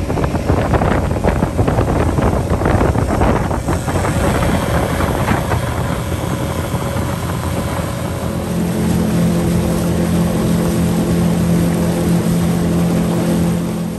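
Tohatsu outboard motor driving an aluminium fishing boat at speed, with wind buffeting the microphone and water rushing past the hull. About eight seconds in, the engine's steady hum comes to the fore.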